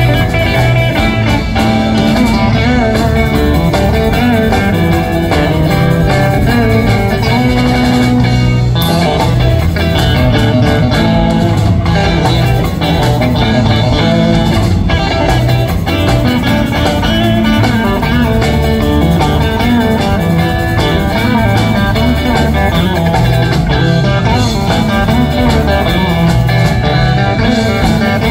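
Live band playing an instrumental passage with electric guitar out front over bass guitar and drum kit.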